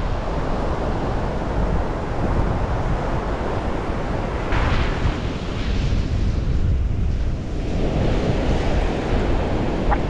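Surf breaking and washing up on a sandy beach, mixed with wind rumbling on the microphone.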